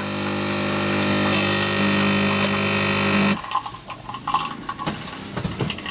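Nespresso capsule coffee machine's pump buzzing steadily while it pushes a coffee through, cutting off suddenly about three and a half seconds in, followed by a few faint clicks.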